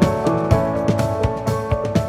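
Background music with held instrumental notes over a steady beat of about two drum hits a second.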